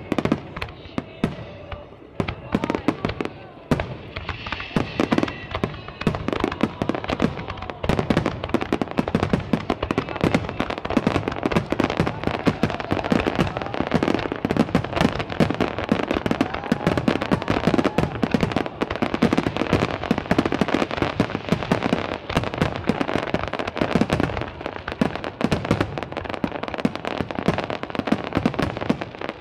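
Aerial fireworks bursting in a rapid, nearly continuous barrage of bangs and crackles.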